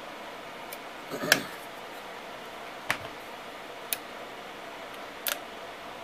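Handling noise from a plastic audio tester box and XLR connectors: about five separate sharp clicks and knocks, the loudest about a second in, as the plug is seated and the controls are worked, over a steady room hiss.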